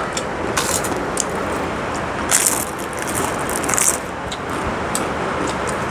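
A potato chip bag crinkling in three short bursts, over a steady hiss of rain.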